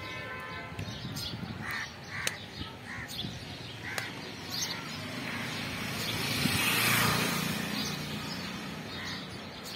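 Crows cawing repeatedly, with other bird calls around them. A rushing noise swells to its loudest a little past the middle, then fades.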